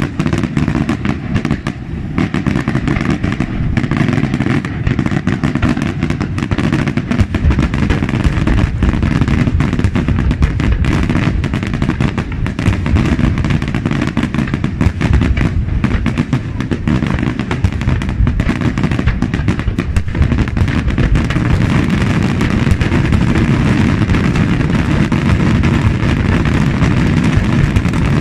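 Daytime fireworks display: aerial salutes and shells firing and bursting in a dense, continuous barrage of bangs and crackles over a low rumble, with no gaps. The barrage grows a little louder in the last third.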